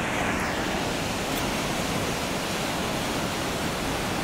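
Steady rush of a mountain creek's waterfalls and cascades pouring through a narrow rock gorge.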